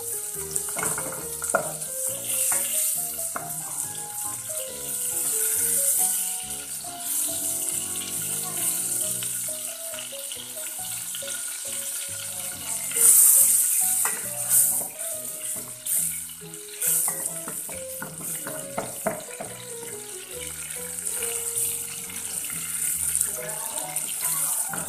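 Butter sizzling as it melts in a stainless steel saucepan over a gas flame, stirred with a plastic spatula, with a few sharp taps of the spatula against the pan; the hiss is loudest about halfway through. Background music plays under it.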